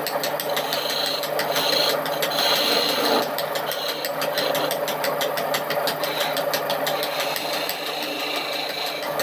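A handheld electric power tool's motor running steadily, with a fast rattling texture and a higher whine that comes and goes, as when the tool bites into the wood.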